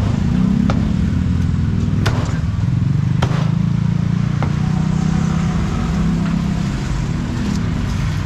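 Steady low rumble of nearby motor traffic, with four or five sharp knocks spaced irregularly.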